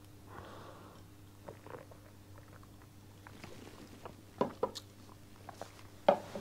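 Drinking glasses set down on a wooden table, a few small knocks in the second half, over a faint steady room hum.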